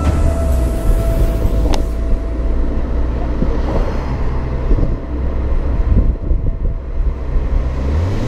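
Toyota Starlet's exhaust heard right at the tailpipe while the car drives: a steady low engine drone under road and wind noise, with a single click about two seconds in.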